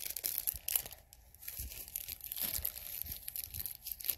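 Black foil mystery-pin bag crinkling and tearing as it is pulled open by hand, a dense run of crackles with brief lulls.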